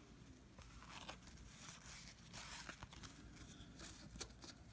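Faint rustling and scattered soft clicks of 1990 Fleer basketball cards being handled and flipped through by hand.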